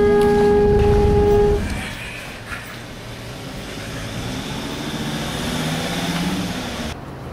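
A horn sounds one steady, held note over a heavy low rumble, then cuts off about a second and a half in. Quieter background noise follows.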